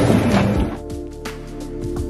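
Background music with sustained notes and a few light percussive hits, coming in under a second in after a short stretch of noisy ambient sound.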